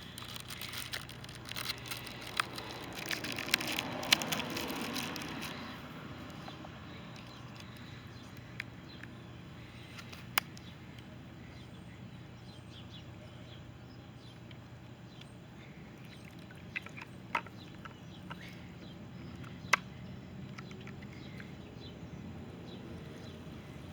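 Small solar bird-bath fountain spraying water that splashes steadily into its bowl. Handling knocks and clicks over the first five seconds or so, then a few single sharp clicks.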